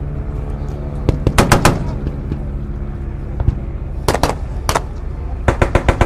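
Battle-reenactment gunfire in short rapid bursts over a continuous low engine drone: a single shot about a second in, a quick burst of four just after, a few more shots past the middle, and another burst of about five near the end.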